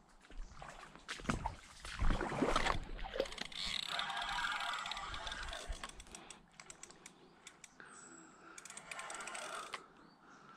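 Fishing reel working with a fast mechanical clicking and rasping, after knocks and thumps from handling the rod.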